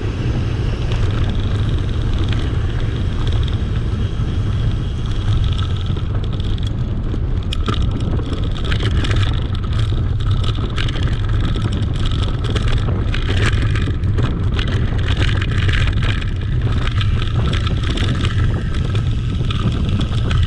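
Wind buffeting the microphone and mountain bike tyres rolling over a dirt trail: a steady low rumble. From about six seconds in, rapid clicks and rattles from the bike over rough ground join it.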